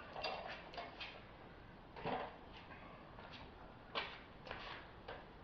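Faint, scattered light knocks and clicks, about half a dozen over several seconds, from handling and fitting the miter saw and its stand during setup.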